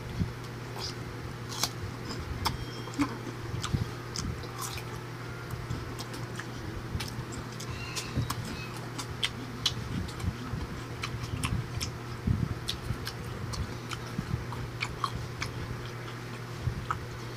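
Close-up crunching and chewing of crisp raw jicama (singkamas), irregular crisp bites and crunches throughout, over a steady low hum.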